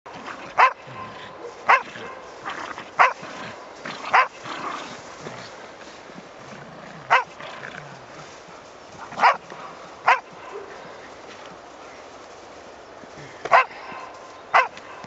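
A Border collie barking in play, single sharp barks about nine times at uneven intervals.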